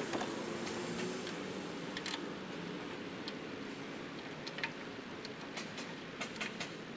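Light, irregular metallic clicks and taps as the thermostat neck and its 10 mm bolts are fitted by hand on a 4.8 L Vortec V8's water pump, over a steady low background hum.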